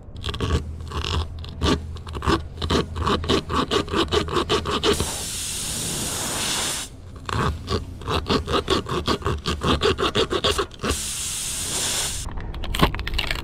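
Serrated reamer tool from a tire plug kit rasping in and out of a nail puncture in a car tire's tread, roughening the hole so a plug will hold. Quick repeated scraping strokes, about four a second, in two runs, with longer steady scrapes between and after them.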